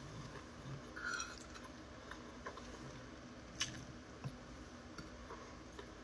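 Faint eating sounds: chewing and mouth noises while eating lamb curry and rice, with a few small clicks of a metal spoon against a plate, the sharpest about three and a half seconds in.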